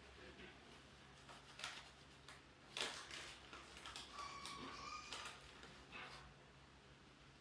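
Faint clicks and knocks of hand work, two sharp clicks among them, and a brief steady squeak-like tone about four seconds in, over a low steady hum.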